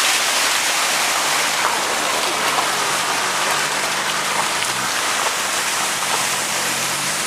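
Steady rushing and splashing of floodwater as a car ploughs through deep water alongside, throwing a wash of spray. A low engine hum joins in about a third of the way through.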